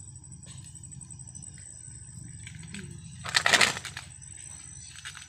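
Steady high-pitched night-insect chorus over a low hum. About three seconds in comes a loud, rustling burst lasting under a second.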